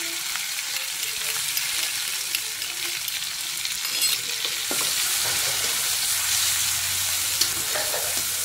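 Pounded chilli-and-belacan spice paste sizzling in hot oil in a wok as it starts to fry, with a few scrapes and taps of a metal spatula against the wok as it is stirred.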